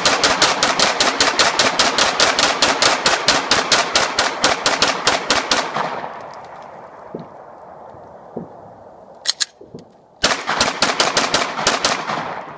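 9mm Glock pistol mag dump: rapid semi-automatic fire, about six shots a second for some six seconds, emptying a 31-round extended magazine, with the echo ringing out after. After a pause come a couple of shots and then another quick string of about ten.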